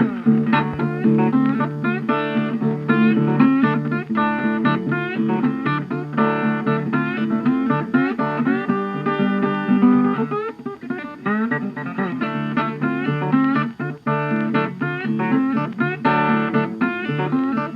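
Background guitar music: plucked guitar notes and chords with a steady rhythm.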